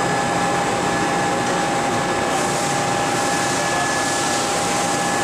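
Steady shop machinery and ventilation hum: an even noise with a steady whine running through it, and a higher hiss that grows about two seconds in.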